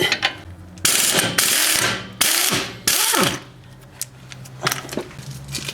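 Impact wrench hammering on a 17 mm brake caliper bracket bolt in about four short bursts, its motor winding down in a falling whine after each. It is working to break the bolt loose.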